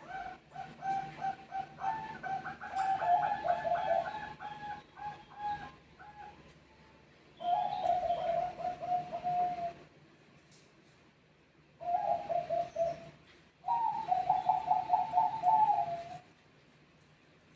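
Zebra doves (perkutut bangkok) cooing in answer to one another, in rapid trilling coo phrases. Two birds overlap in the first few seconds, then single phrases come about 7, 12 and 14 seconds in.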